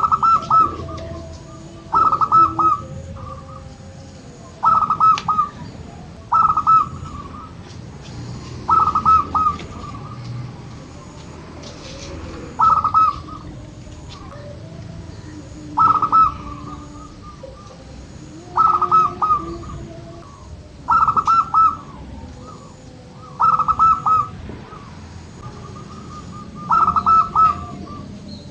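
Zebra dove (local perkutut) cooing: a short phrase of quick, clipped notes, repeated about every two seconds. Fainter, lower notes sound between the phrases.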